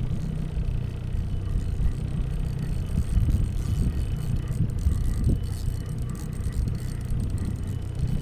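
Small petrol outboard motor running steadily with a low, even hum.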